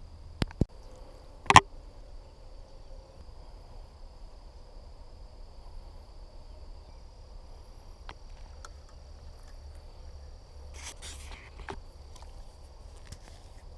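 Insects keeping up a steady high-pitched buzz that settles in about three seconds in and carries on, over a low rumble. Three sharp clicks come in the first two seconds, the last one the loudest.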